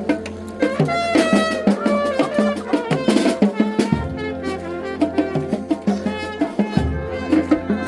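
Band music with a steady percussive beat and a melodic lead line over a held bass. The bass drops out for about three seconds in the middle and comes back near the end.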